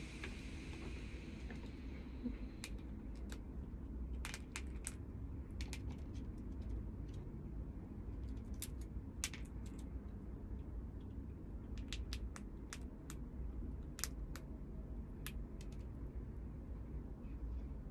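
Red squirrel gnawing scales off a pine cone and chewing: scattered sharp, crisp clicks and cracks at irregular intervals, over a steady low hum.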